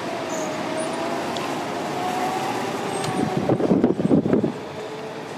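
Go-kart engines running on the track, a steady whine that wavers slightly in pitch, with a louder, rougher stretch of about a second between three and four and a half seconds in.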